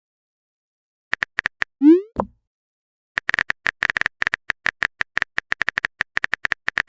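Phone chat sound effects. A few quick keyboard-typing clicks are followed by a short rising 'bloop' message tone with a low drop, then a long rapid run of typing clicks.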